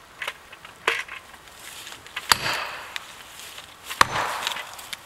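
Heavy blows striking a felling wedge in the back cut of a beech: three sharp strikes about a second and a half apart, each with a short ring after it.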